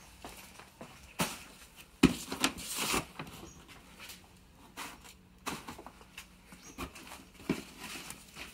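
Footsteps on a concrete path, then the crinkle and soft knocks of a paper takeout bag being handled and set down on a doormat, loudest about two to three seconds in.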